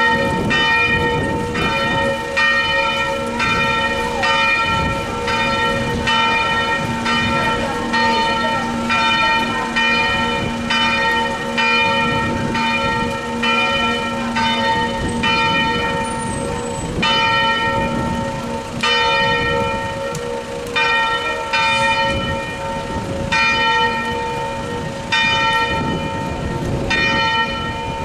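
A church bell swung full circle (a distesa peal), its clapper striking about once a second with a ringing set of overtones, a few strokes coming at longer gaps in the second half. Wind rumbles on the microphone underneath.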